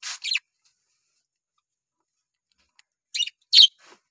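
Budgerigar chirps: two short, high chirps at the start, then a quiet stretch, and three more sharp chirps near the end.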